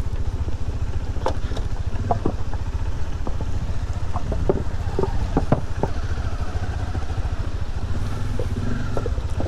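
Motorcycle engine running steadily while riding, with wind noise and a few short knocks.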